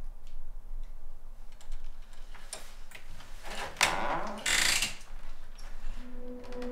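A faint ticking clock, then clicks and rattles of a door's knob and latch as it is opened, with a short rush of noise as the door swings about four seconds in. A low, held music drone comes in near the end.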